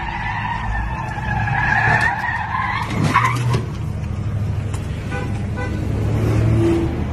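Traffic collision between a truck and a car: tyres squealing in a wavering whine, then a sharp crash about three seconds in, over a steady low engine rumble.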